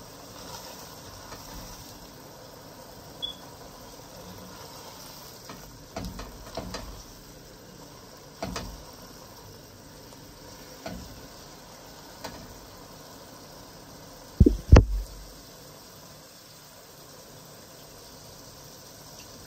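Tomato-and-pepper sauce frying and simmering in a pot with a steady low hiss, while a spoon stirs it and knocks against the pot now and then. About two-thirds through come two loud knocks in quick succession, the loudest sounds here.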